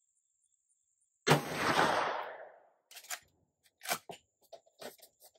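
A single .357 Magnum shot from a Rossi R92 lever-action carbine about a second in, its report echoing away over about a second and a half. Then a run of sharp metallic clacks as the lever is worked to eject the spent case and chamber the next round.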